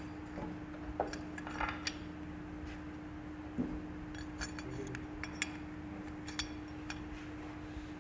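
Small metal engine parts and hand tools clinking and tapping in a dozen short, scattered knocks during motorcycle clutch assembly, over a steady low hum.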